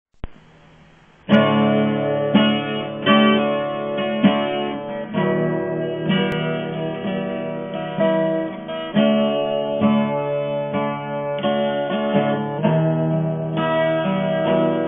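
Acoustic guitar played solo: chords strummed and left ringing, with a new strum about every second, beginning a little over a second in after a brief click.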